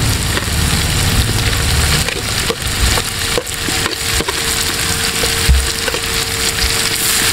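Sliced onions sizzling and crackling in hot coconut oil in a large aluminium pot over a wood fire, with scattered pops as green chillies are dropped in. The onions are wilting as they fry.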